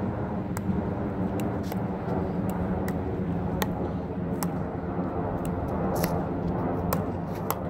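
Pickleball dink rally: paddles tapping a plastic pickleball back and forth and the ball bouncing on the hard court, a sharp tap about every half second to a second. A steady low rumble runs underneath.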